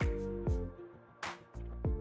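Electronic background music with a steady beat of deep kick drums over a low bass, and a sharp high drum hit in between.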